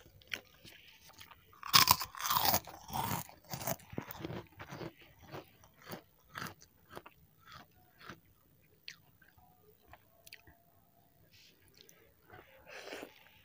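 Close-miked chewing of a crunchy krupuk cracker with fried instant noodles. The loudest crunching comes about two seconds in, followed by softer, irregular chewing.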